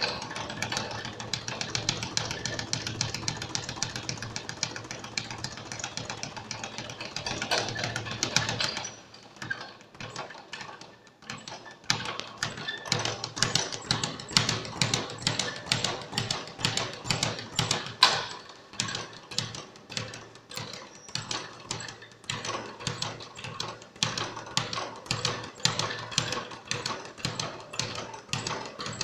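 Speed bag being punched rapidly so it rebounds off its round overhead platform: a fast, continuous rattle of strikes. The rattle breaks off for a couple of seconds about nine seconds in, then starts again with a steady, even rhythm.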